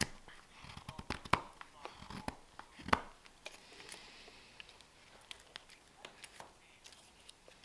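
Carving knife slicing shavings from a green-wood spoon: a quick run of short, sharp cutting snicks, densest and loudest in the first few seconds, then sparser and quieter.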